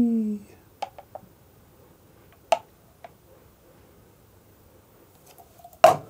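Handling of a milk pitcher and ceramic cup, heard as a few soft clicks and one sharp knock near the end. A voice's falling hum dies away in the first half second.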